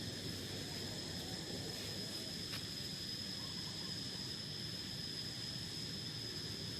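Steady high-pitched insect trill, crickets, unbroken throughout, over a low rumbling background noise, with a single brief click about two and a half seconds in.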